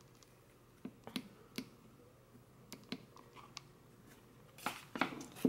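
Faint, scattered clicks and taps from hands working with a hot glue gun and small foil stars on a wooden craft frame, with a busier patch of handling near the end.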